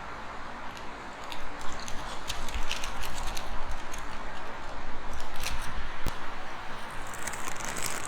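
Crunchy curly fries being chewed close to the microphone, with irregular crisp crackles, over a steady rush of wind on the microphone.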